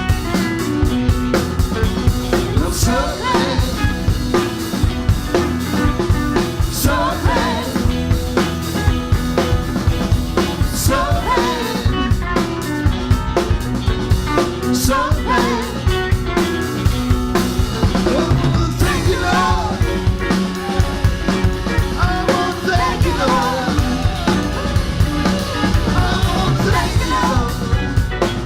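Live band playing an up-tempo gospel-rock song: a drum kit keeps a steady beat with snare hits under bass, chords and a wavering lead melody line.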